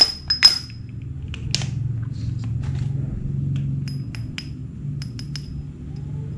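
Small metal clinks and taps as the metal spool of a Shimano Sienna 1000 FE spinning reel is handled, each a short bright ring, a couple early on and a quick cluster about four to five seconds in. A steady low hum runs beneath.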